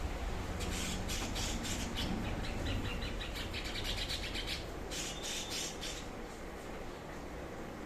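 Cucak cungkok songbird singing a fast, scratchy string of short notes with a brief clear whistle about five seconds in, going quieter near the end, over a steady low hum.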